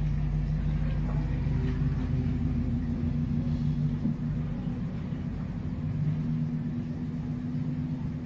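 Steady low mechanical hum with a couple of held low tones, unchanging throughout.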